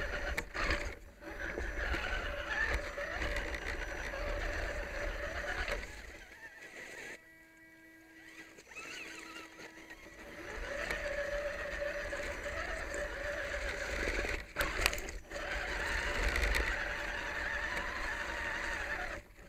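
Electric motor and gear drive of an RC rock crawler whining steadily as it crawls over rocks and leaves, picked up by a camera mounted on the truck, with rumble and knocks from the rough ground. The whine stops for a few seconds near the middle, then resumes.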